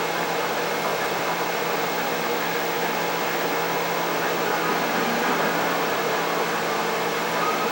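Steady fan-like mechanical whir with a constant low hum, unchanging throughout.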